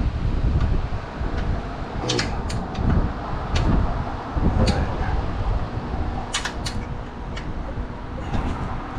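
Close handling noise from hands and tools working on a car's front end. A low rubbing, shuffling rumble runs throughout, broken by several sharp clicks and clinks at irregular intervals.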